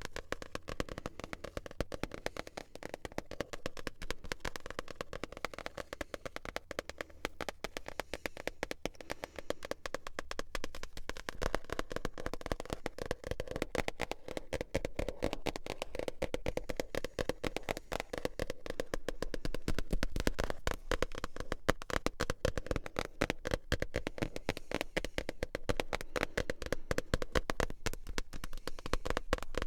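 Fast, continuous tapping on manga books, with many sharp taps a second.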